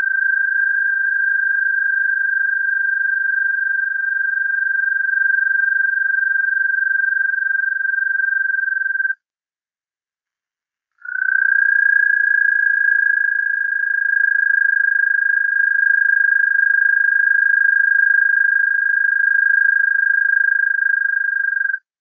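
American toad calling: two long, steady, high musical trills, the first stopping about nine seconds in and the second starting about two seconds later and lasting about eleven seconds.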